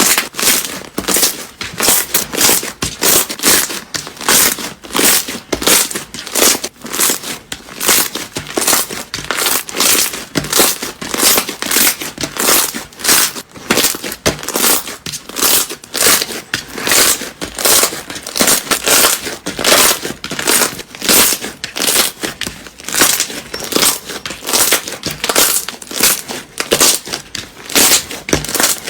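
Crunchy slime being squeezed and pressed by hand, giving a continuous run of crinkling, crackling pops, several a second.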